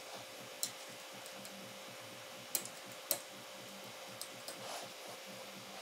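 A handful of faint, sharp ticks from a metal 90-degree pick touching the brake caliper's bore as a new O-ring is worked into its groove, over a low steady hum.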